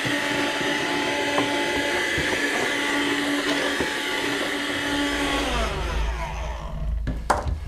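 Small electric motor running with a steady whine, then winding down to a stop about five and a half seconds in, with a single click near the end.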